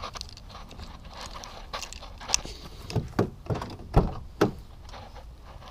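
A string of knocks and clicks, irregular, with the loudest thump about four seconds in.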